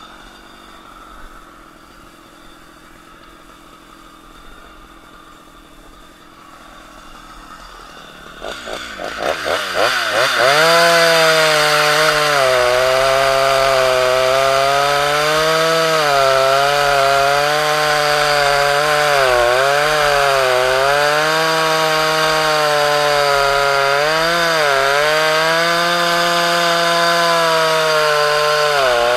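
Two-stroke chainsaw idling faintly, then revved to full throttle about eight seconds in and run loud while cutting through a bundle of stacked logs, its pitch dipping and recovering as the chain bites under load. The engine drops off sharply near the end.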